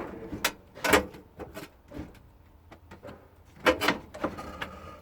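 A series of knocks, bumps and scrapes as an old motorhome fridge is worked out of its cabinet, with a cluster of several knocks near the end.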